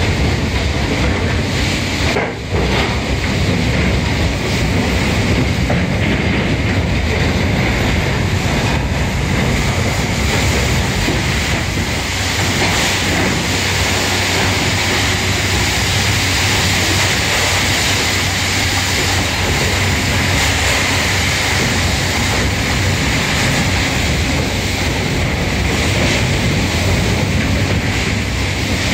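Crane-mounted hydraulic brush cleaning machine running steadily as its brushes scrub the inside walls of a coal gondola wagon: a loud, even running noise with a low hum and hiss, dipping briefly about two seconds in.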